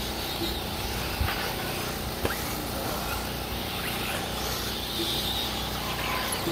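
Electric 1/8-scale RC buggies running on a clay track: a faint motor and gear whine over steady outdoor noise, with two sharp knocks, about one and two seconds in.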